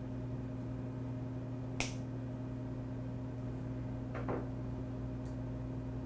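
Small wire cutters snipping once with a sharp click about two seconds in, trimming the jacket and rip-cord fibers from a stripped Ethernet cable end. A softer, duller handling sound follows a little past four seconds, over a steady low hum.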